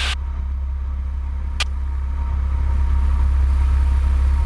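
Light airplane's engine droning steadily in the cockpit on final approach, with a single sharp click about a second and a half in; the drone grows a little louder in the second half.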